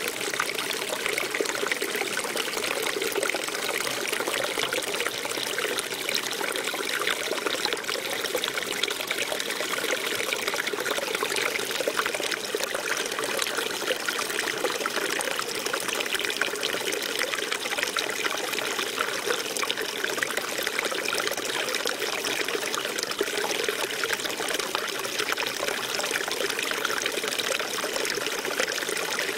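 Small stream of water spilling over a rock ledge and splashing into a shallow pool, a steady close-up trickle and splash.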